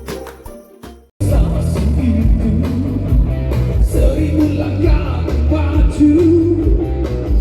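Live band playing a rock song with drums, bass, guitar and a singing voice, starting abruptly about a second in. Before it, a jingling piece fades away to a moment of silence.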